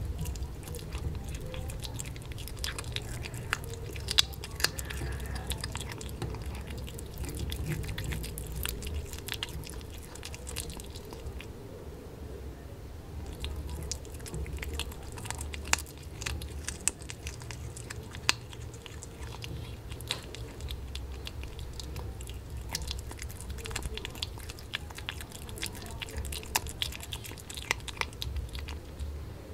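Kitten chewing and biting raw fish, a close run of small, irregular wet clicks from its mouth, over a low steady hum.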